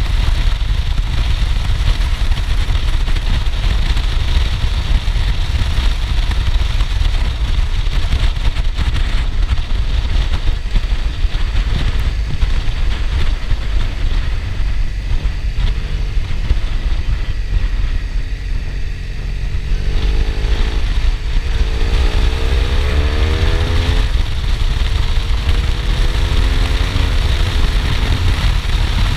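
BMW R1200R boxer-twin engine through an Akrapovic titanium exhaust while riding, under heavy wind buffeting on the microphone. About two-thirds of the way in the engine note dips briefly, then rises as the bike accelerates.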